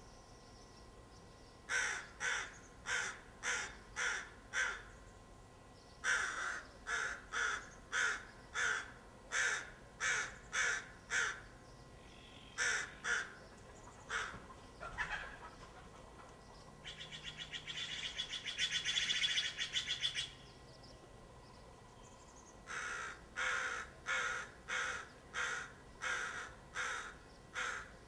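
American crows cawing in repeated runs of harsh, evenly spaced caws, with a rapid rattling call of about three seconds in the middle.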